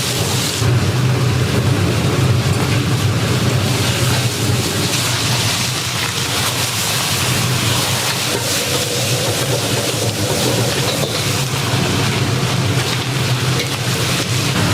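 Commercial kitchen noise: a steady loud rush over a low hum.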